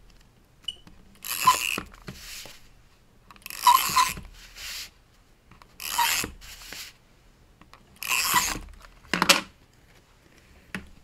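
Repeated rasping strokes against paper, about one every two seconds. Each is a louder stroke followed by a softer one.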